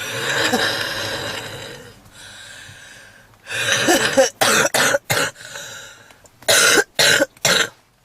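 A woman's heavy smoker's cough: a long, noisy breath, then two bouts of hard, hacking coughs, the second of three short sharp coughs near the end. The uploader presents it as a smoker's cough with wheezing, typical of smoker's bronchitis.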